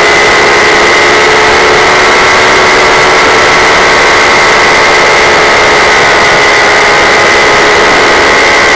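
Paramotor engine and propeller running steadily in flight: a loud, unbroken drone with a steady high whine on top, close to the motor.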